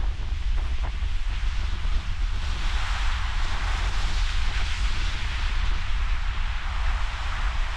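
Ocean surf washing in, with wind buffeting the microphone. The wash swells about two and a half seconds in and stays up.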